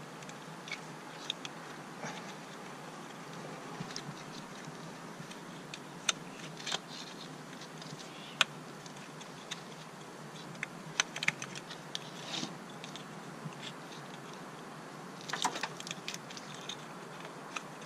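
Irregular light metallic clicks, clinks and taps of tools and parts being handled in an engine bay, with a couple of louder sharp clicks and short clusters of clatter.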